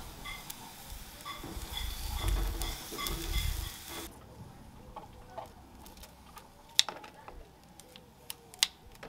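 Chicken sizzling on a gas barbecue grill with a low rumble, which cuts off abruptly about four seconds in. After that it is quieter, with sharp clicks and taps from metal barbecue tongs as the pieces are lifted into a plastic tub.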